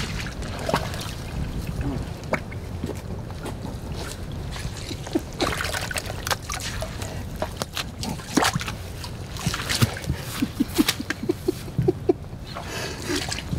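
Boots squelching and splashing through mud and shallow water, in irregular steps, over a steady low rumble.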